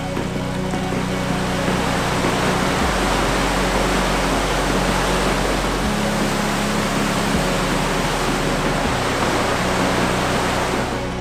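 Steady rush of white water from the Maligne River's rapids and small falls pouring through the limestone canyon.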